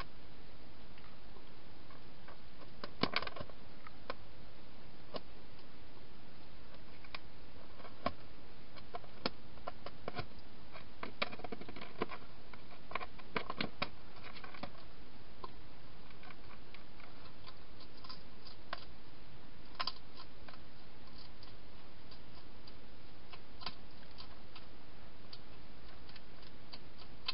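Wild hedgehog feeding: scattered small crunches and clicks, irregular and bunched in clusters, over a steady hiss.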